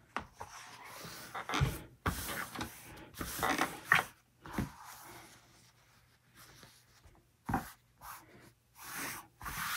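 Fabric being handled and smoothed out on a work table: irregular rustling and rubbing in short bursts, with a few soft thumps.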